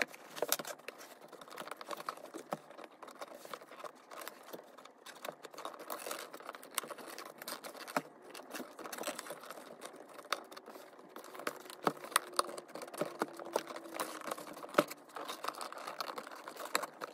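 Hands working at a cardboard shoe box to pry it open: irregular taps and clicks with the rustle and scrape of cardboard.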